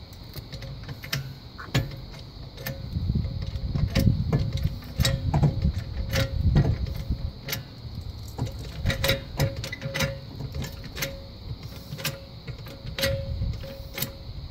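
Hydraulic floor jack being pumped by its handle, with a run of metallic clicks and knocks and a low thud about once a second. The jack is lifting the front suspension under load to force a joint apart.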